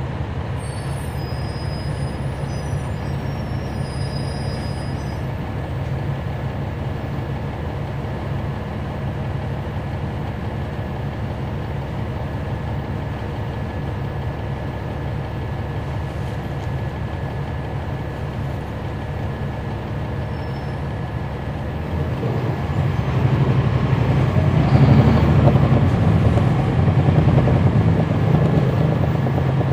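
Cummins ISL9 diesel engine of a 2011 NABI 416.15 transit bus, heard from inside the cabin, running steadily for about twenty seconds, then growing louder and rising in pitch as the bus accelerates. A few faint high tones sound in the first few seconds.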